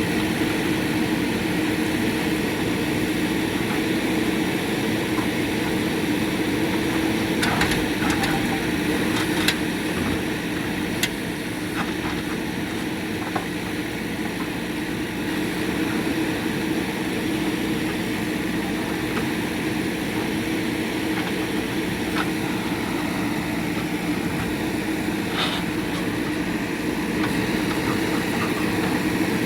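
JCB 3DX backhoe loader's diesel engine running steadily at working revs. A few sharp knocks of the bucket on concrete come about a quarter of the way in, and one more comes near the end.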